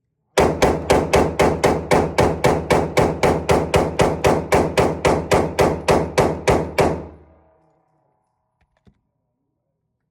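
Glock 45 9mm pistol fired in rapid semi-automatic succession from an extended magazine: about two dozen evenly spaced shots, about four a second, over some six seconds. The last shot's ringing fades out, and a single faint click follows near the end.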